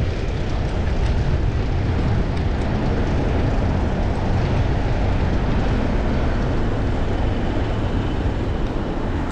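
Wind rushing over a chest-mounted action camera on a moving bicycle: a steady low rumble with road noise underneath.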